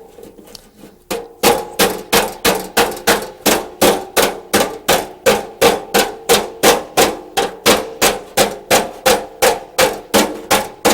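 Hammer blows on a dolly block, working the sheet-steel edge of an old car's fender back over its reinforcing wire. There are a few light taps at first, then steady blows about three a second, each with a short metallic ring.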